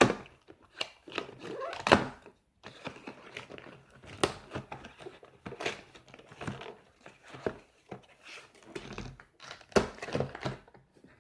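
A speed cube timer's packaging being ripped and crinkled open by hand: irregular crackles, tearing and occasional knocks.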